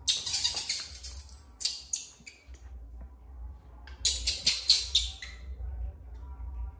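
A baby monkey scrambles through a fabric play tent full of plastic balls, rustling the tent. There is a dense burst of rustling at first, two short strokes a little later, and a quick run of about five rustles between four and five seconds in.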